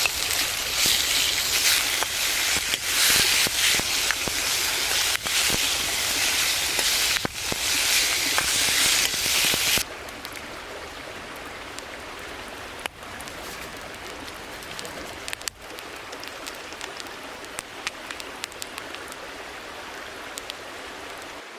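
Rain falling, a loud steady hiss with the patter of drops hitting, that cuts off abruptly about ten seconds in. It gives way to a much quieter steady wash of water with scattered light drop ticks.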